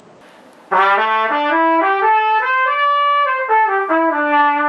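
Trumpet playing a phrase of short notes that climbs step by step and then falls back down, ending on a long held note. It comes in a little under a second in.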